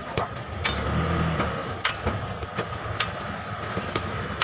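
A metal tool striking snail shells on a wooden board, about six sharp, irregularly spaced knocks, cracking off the shell tips so the meat can be sucked out. A steady engine-like hum with a thin high tone runs underneath.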